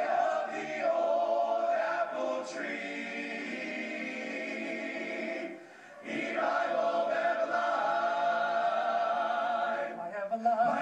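A men's glee club choir singing a cappella in close harmony, holding long chords, with a short break about six seconds in. The sound comes through a television's speaker.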